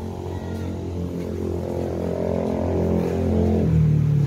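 Engine of a passing motor vehicle, getting steadily louder as it approaches, its pitch changing near the end.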